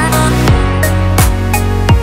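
Background music with a steady beat: a deep kick drum that drops in pitch on each hit, about three hits every two seconds, over a held bass line.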